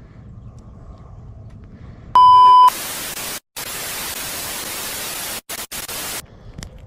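TV static transition sound effect: a short, loud, high test-tone beep about two seconds in, then an even static hiss for about three and a half seconds. The hiss cuts out briefly a few times before stopping.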